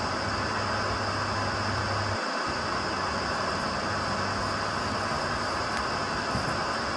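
Steady white-noise hiss, even and unchanging, with a faint low hum underneath that drops out briefly a little over two seconds in.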